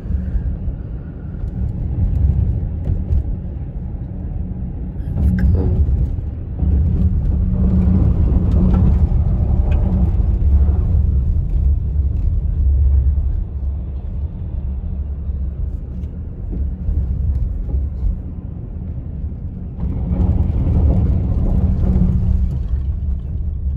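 Road noise inside a moving car: a steady low rumble of engine and tyres that swells and eases.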